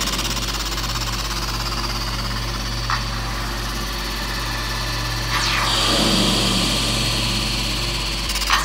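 Motorised moving-head stage lights whirring as they pan and tilt, over a steady electrical hum. A falling whine comes about two-thirds of the way through, with short sharp sounds about three seconds in and near the end.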